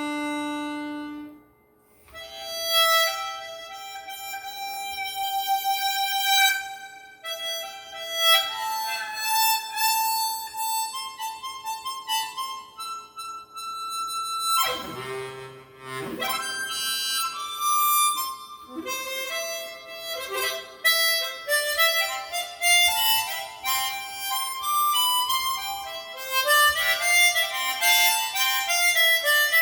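Seydel Symphony chromatic harmonica with Kettlewell Resonant Covers, played through a sound system: a solo melodic line of single notes and quick runs, with a short pause about a second in and a busier stretch of high notes near the end.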